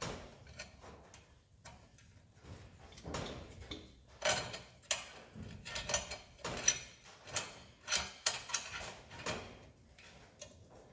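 Hex key clicking and scraping on a bolt as it is turned by hand into a motorcycle crash-bar mount: a run of light metal ticks, sparse at first and then about two a second from around four seconds in.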